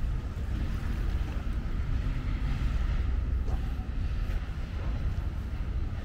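Wind buffeting the microphone as a steady, fluttering low rumble, over a hiss of outdoor background noise.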